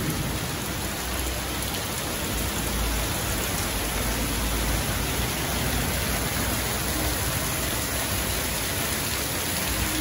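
Heavy rain pouring down on the street and roofs, a steady hiss with water streaming off the eaves.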